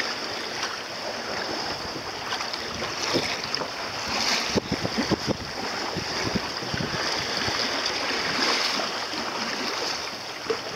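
Water rushing and lapping against the hull of a small centreboard sailing dinghy under way in a light chop, with wind buffeting the microphone. A quick run of sharper slaps comes about halfway through.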